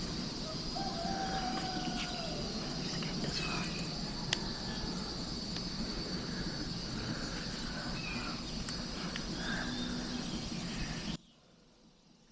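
Outdoor ambience: a steady high insect drone with a few short bird calls. It cuts off abruptly to near silence about a second before the end.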